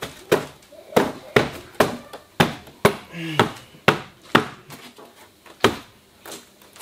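About a dozen sharp knocks, roughly two a second for the first four seconds, then two more spaced out near the end, as of knocking on wood during building work.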